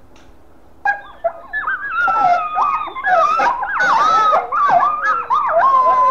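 Gray wolves howling in chorus, several voices overlapping with wavering, sliding howls mixed with higher yips and whines. It starts suddenly about a second in and thickens into a dense pack chorus.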